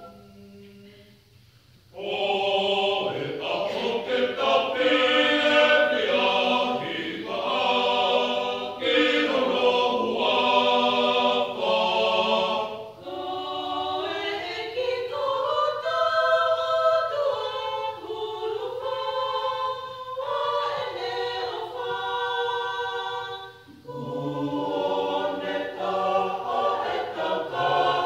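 Mixed choir of men and women singing a Tongan gospel hymn in parts. The choir enters about two seconds in after a brief pause. Partway through the sound thins out, then the full choir comes back in near the end.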